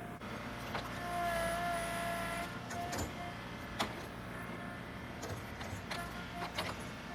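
Tractor running under load, with a pitched whine that comes and goes and several sharp knocks or cracks, the loudest about four seconds in.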